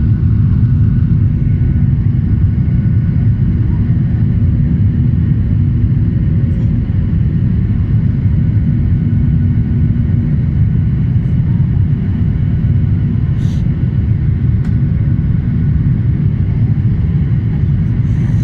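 Steady low drone inside an airliner cabin in flight: engine and airflow noise with no change in pitch. A brief click sounds about 13 seconds in.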